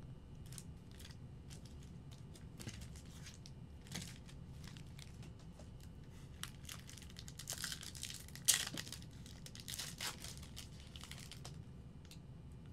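Trading card pack wrapper crinkling and tearing as a pack is opened, with light clicks of cards being handled. The rustling gets louder about two-thirds of the way through, with one sharp snap.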